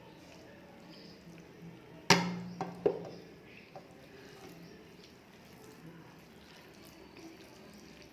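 Dishes clinking during a meal: a sharp knock about two seconds in that rings briefly, then a smaller knock under a second later, over faint eating sounds.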